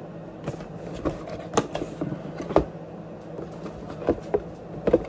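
Handling noises: a few short, irregular knocks and clicks as an object is picked up and turned over by hand, over a steady low hum.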